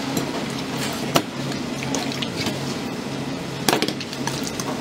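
Wet squelching and sloshing as a raw octopus is gripped and kneaded in rubber-gloved hands, with scattered clicks and two sharper knocks, about a second in and near four seconds in.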